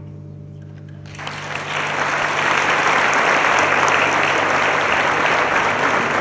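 The last held notes of the music fade, then an audience bursts into applause about a second in, swelling quickly and continuing steadily.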